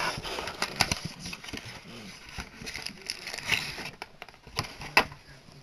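Hands handling a cardboard box and its packaging: rustling and scraping broken by scattered clicks and taps, the sharpest a knock about five seconds in.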